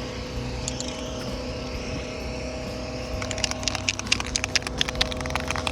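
A steady mechanical hum, with a quick run of sharp clicks or rattles starting about three seconds in.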